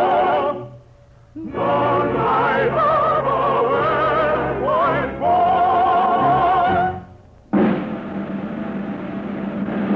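Operetta music from an orchestra and choir: vibrato voices sing a phrase with a short break about a second in, then stop near seven seconds. A full held chord follows and runs to the end.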